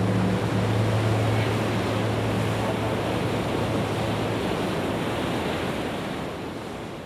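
A steady rushing noise like surf, under a low hum that dies away about halfway through; the whole sound begins to fade out near the end.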